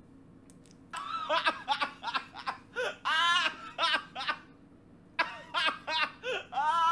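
A young man laughing hard in repeated high-pitched bursts, starting about a second in, with a short pause in the middle.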